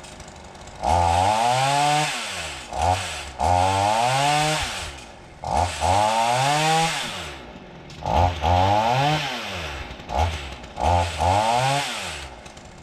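Chainsaw revved in a series of bursts, the engine pitch jumping up and sliding back down toward idle between each, as it is throttled for felling a tree.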